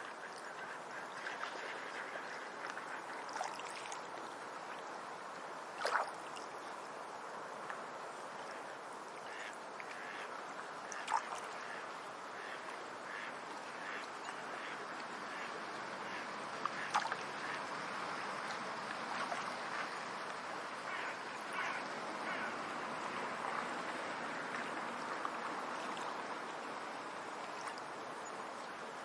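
Autumn beach ambience: a steady wash of water along the shore, with short calls and sharp sounds scattered through it, the loudest about six and eleven seconds in.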